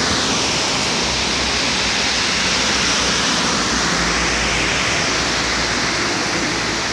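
Steady hiss of heavy rain, with vehicles passing on a wet highway, their tyre noise rising and falling.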